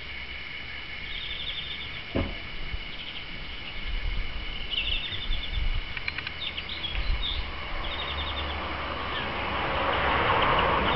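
Small songbirds calling: short, rapid rattling series of high chirps repeated every couple of seconds over steady high twittering. A single sharp knock comes about two seconds in, and a rush of noise swells near the end.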